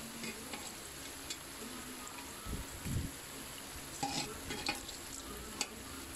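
Duck pieces sizzling in a wok while being stirred. Utensil clicks and scrapes against the pan come about a second in and several times in the second half, with a couple of dull knocks near the middle.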